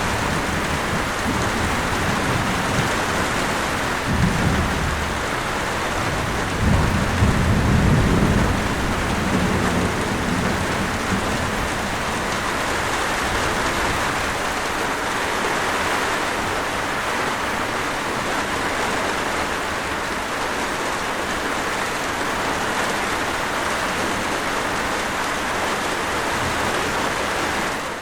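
Steady heavy rain, with low rumbles of distant thunder about four seconds in and again from about seven to ten seconds in.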